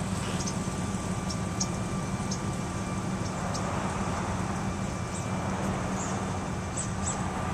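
Steady low hum of a vehicle engine, running evenly, with faint short high chirps scattered through it.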